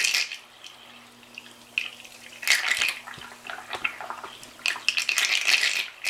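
Water churning and splashing in irregular surges, stirred by a canister vacuum cleaner's motor and impeller running fully submerged about an inch under water, heavily loaded by the water's resistance. A steady low hum runs beneath.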